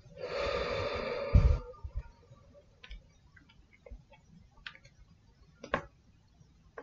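A breathy rush of noise lasting about a second and a half, cut off by a heavy low thump, then a few scattered light clicks and taps.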